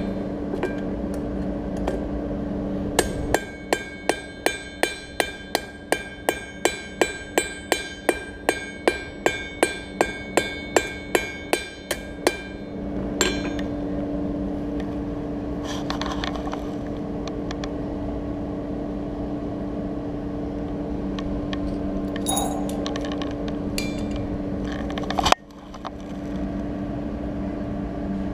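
Blacksmith's hand hammer striking hot steel on an anvil, forging a leaf: a regular run of about two dozen ringing blows, nearly three a second, that stops about halfway through. A steady low hum runs underneath, with a few light clinks later and one sharp knock near the end.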